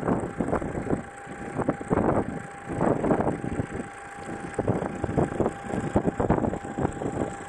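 Strong blizzard wind buffeting the microphone in irregular loud gusts.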